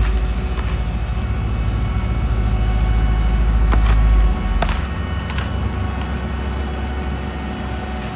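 Heavy diesel construction machinery running with a deep, steady rumble that drops off sharply about four seconds in, with a few scattered clanks and knocks over it.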